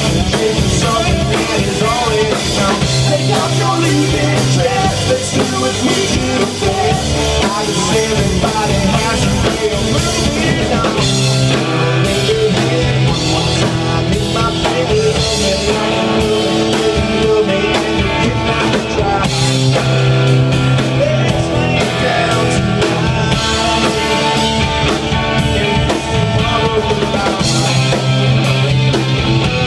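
Live rock band playing amplified: a man singing over electric bass, electric guitar and a drum kit.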